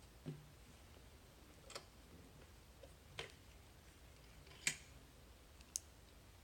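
Five scattered sharp clicks and taps, roughly a second apart, the loudest about two-thirds of the way through: a picked lock and tools being handled as it is readied for gutting.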